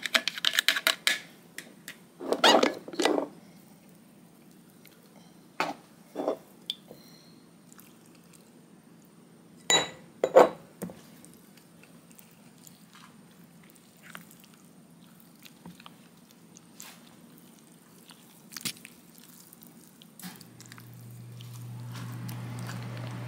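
Scattered clicks, taps and knocks of hands and utensils at work over a lemon juicer, with long quiet gaps between them. A steady low hum starts near the end.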